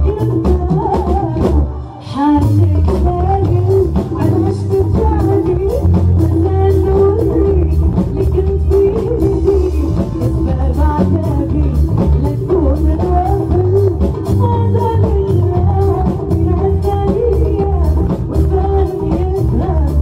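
Live band playing Moroccan pop: a woman's lead vocal over violin, electric guitar, keyboard and drum kit with a steady beat. The music drops out for a moment about two seconds in.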